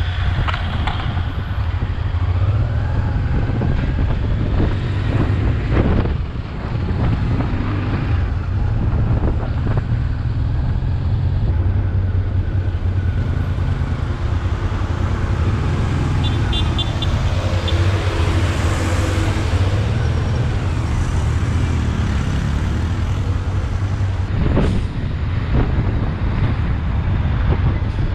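Honda XRV 750 Africa Twin's V-twin engine running steadily at low road speed, a continuous low drone, with road traffic from the trucks and cars alongside and wind on the microphone.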